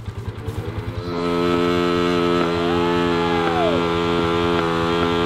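Dirt bike engine, stationary, revved up from idle over about a second and held at high revs, a steady high drone, for about four seconds. The revs start to drop right at the end.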